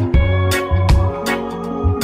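Background music with a steady beat: a drum hit about every half second over a bass line, with guitar.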